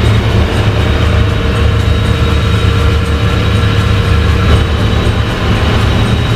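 Volvo Penta D6 six-cylinder marine diesel engine running steadily, held at about 1500 rpm during a cylinder-by-cylinder compression check.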